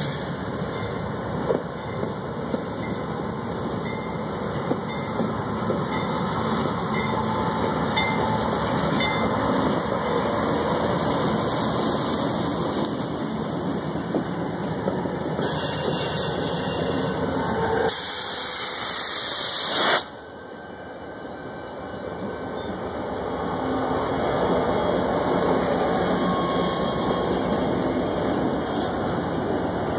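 CSX freight train passing close by. Its diesel-electric locomotives run past, followed by freight cars rolling on the rails with steady wheel noise. About two-thirds of the way in, a loud hiss builds for about two seconds and cuts off suddenly.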